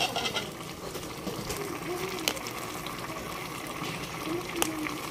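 Pot of galunggong adobo boiling: the vinegar-and-soy braising liquid bubbling steadily, with two sharp pops, one a little over two seconds in and one near the end.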